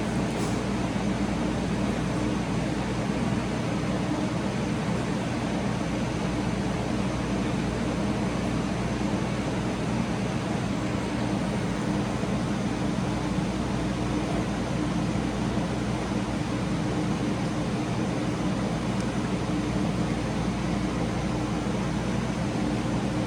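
Steady air rush and motor hum of several ceiling fans running, while a switched-off Harbor Breeze ceiling fan coasts through its spin-down.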